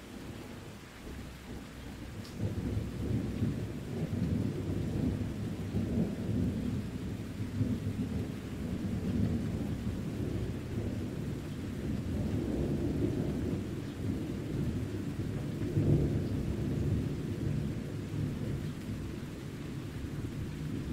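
Deep, rolling thunder rumbling on and on, swelling about two seconds in and peaking once more near the end, over steady rain.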